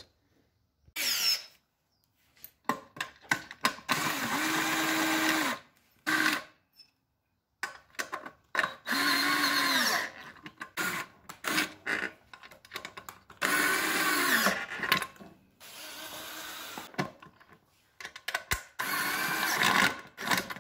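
Power drill driving in screws in about four short runs, each one speeding up and then slowing down, with clicks and knocks between the runs.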